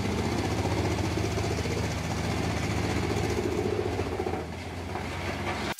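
Wood chipper's engine running steadily, a low even drone.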